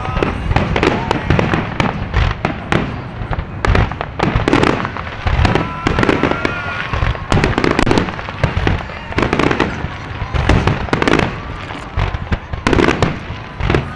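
Aerial fireworks bursting in rapid, overlapping succession: a dense, continuous run of bangs and crackles with deep booms underneath.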